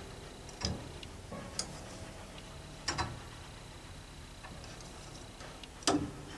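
Four separate sharp clicks and light knocks of small hard parts being handled, spaced unevenly, with the loudest near the end.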